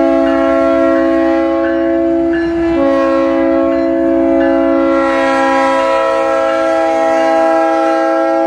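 A BNSF diesel locomotive's multi-chime air horn sounding one long blast as the engine rolls by with its tank cars. Several notes sound together in a chord, with a brief break about two and a half seconds in.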